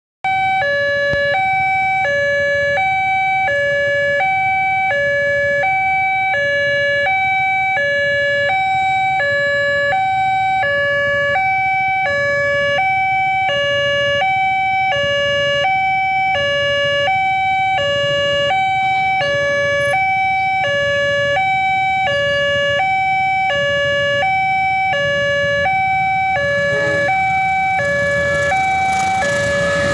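Railway level-crossing warning alarm sounding a steady two-tone electronic signal, high and low tones alternating about one and a half times a second, meaning a train is approaching. A rising rush of noise joins it in the last few seconds.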